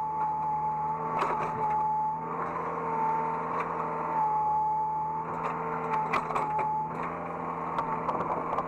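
Hydraulic excavator heard from the operator's seat: the engine and hydraulics run with a steady whine that dips slightly in pitch now and then, with scattered clicks and knocks.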